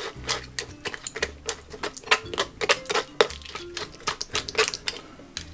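Metal spoon scraping and clicking against a sieve as tamarind pulp is pressed through it: a fast, irregular run of sharp ticks.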